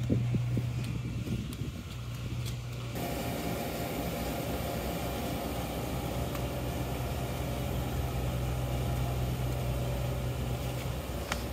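A steady low mechanical hum with a constant drone. About three seconds in, a brighter hiss joins it and continues.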